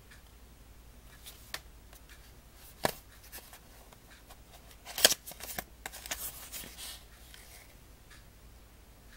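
Cardboard eyeshadow palette box handled by hand: scattered taps and clicks, then a cluster of louder clicks and papery rustling about five seconds in as the box's end flap is pried open.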